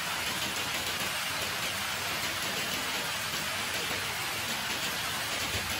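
Steady rain falling on a wet concrete yard, an even hiss with no break.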